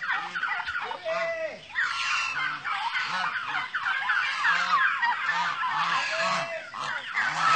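A flock of domestic geese honking, many short overlapping calls in a continuous chorus.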